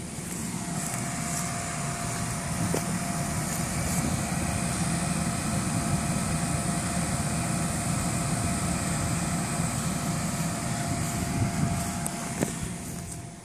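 Electric blower fan of an inflatable waterslide running continuously to keep it inflated: a steady whine over a rushing rumble. It grows louder over the first few seconds and fades near the end.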